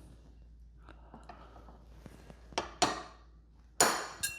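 Metal tools and outboard parts clinking and knocking on a workbench: four sharp knocks, two in the middle and two louder ones near the end, the last ringing briefly.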